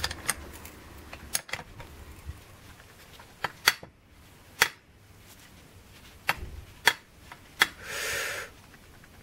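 Scattered sharp metal clicks and taps as a spanner and a motorcycle throttle body with its throttle drum are handled on a bench. A brief hiss about eight seconds in.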